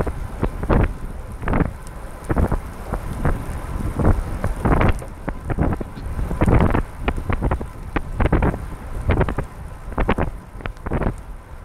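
Wind buffeting the microphone of a camera on a recumbent trike riding on a wet road, coming in irregular rumbling gusts several times a second.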